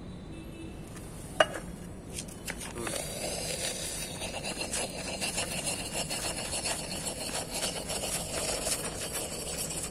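A sharp knock about a second and a half in, then a snake tablet firework burning under an upturned glass bottle with a dense, rapid crackling fizz.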